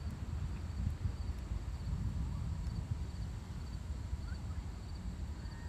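Wind buffeting the microphone as a low rumble. Faint high chirps repeat about twice a second behind it, with a few short bird-like chirps near the end.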